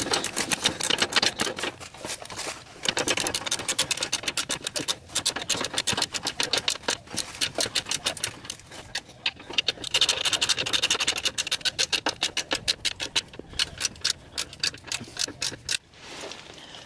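Hand ratchet wrench clicking in rapid runs with short breaks as the socket turns the U-bolt nuts on a leaf spring, stopping near the end.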